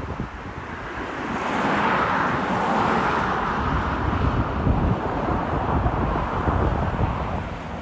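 Airbus A380 on final approach, its four jet engines giving a steady rushing noise that grows louder about a second in as it nears. Gusts of wind rumble on the microphone underneath.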